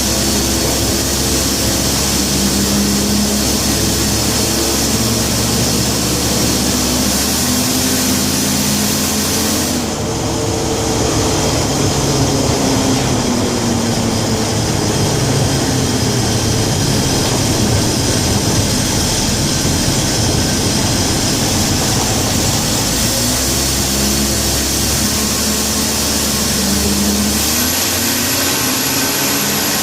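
Engine of a 1967 Chevy G10 van running, its pitch rising and falling for several seconds in the middle before it settles again.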